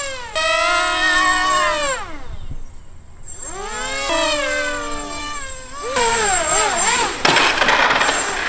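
A radio-controlled model biplane's motor and propeller whining overhead. The pitch slides down over a couple of seconds, climbs again, then wavers up and down as the throttle changes, with a rush of noise near the end as the plane comes in low.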